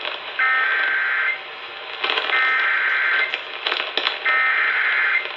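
Emergency Alert System SAME header: three bursts of shrill digital data tones, each about a second long with about a second between them, received over a radio with hiss in the gaps. These bursts are the coded header that opens an EAS alert.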